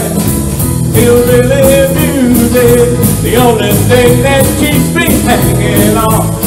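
Rock-and-roll band playing: a man singing lead over electric guitar, bass, keyboard and drums with a steady beat.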